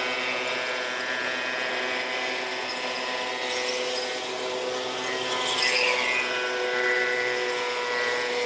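Portable thickness planer running with a steady motor whine while a rough pallet-oak board feeds through, the cutterhead adding a rushing cutting noise that is strongest in the middle.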